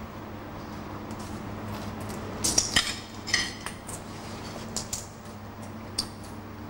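Broken glass shards crunching and clinking underfoot on a hard floor, a quick cluster of sharp clinks a couple of seconds in and a few single ones later, over a steady low hum.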